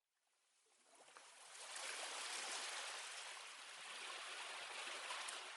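Steady rush of water fading in after a short silence.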